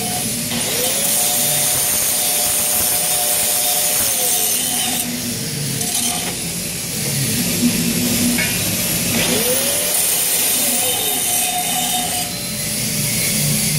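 Electric arc welding on a steel pipe joint overhead: the arc's steady crackling sizzle. A fainter whining tone in the background rises, holds and then drops, twice.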